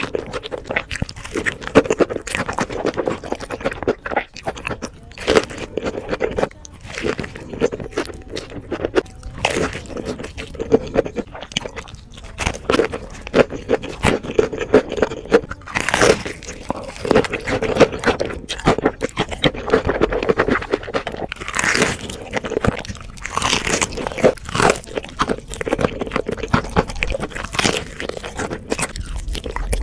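Close-miked crunching and chewing of crispy fried chicken and a fried-chicken burger: a steady crackle of breaded crust being bitten and chewed, with several louder crunchy bites in the second half.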